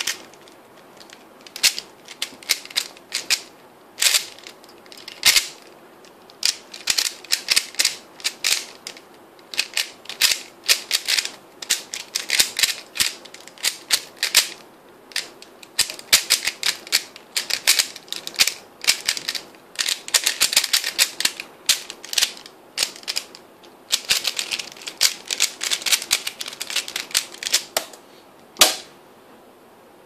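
3x3 Rubik's cube being turned fast in a speedsolve: bursts of rapid plastic clicking and clacking as the layers are twisted, with short pauses between them. A single louder knock near the end as the solve is finished and the timer is stopped on the laptop keyboard.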